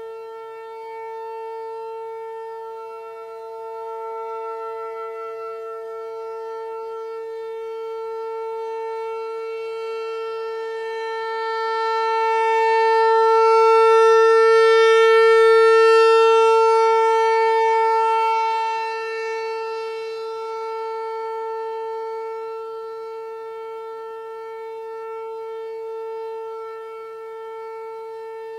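American Signal T-128 outdoor warning siren sounding a steady wail during its monthly test, holding one pitch throughout. It swells louder once near the middle as its rotating head sweeps toward the listener, then falls back.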